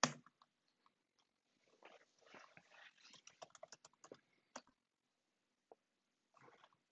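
Quiet computer keyboard typing: scattered key clicks, then a quicker run of keystrokes in the middle and a few single presses.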